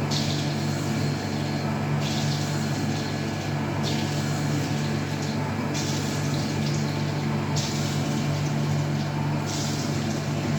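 CNC electrode (EDM-type) machine running: a steady electrical hum with bursts of high hiss, each lasting a second or so, coming about every two seconds.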